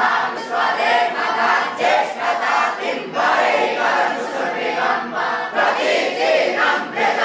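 A group of boys' voices chanting Sanskrit mantras together for the sacred-thread (janai) rite, many voices at once in loud, continuous recitation.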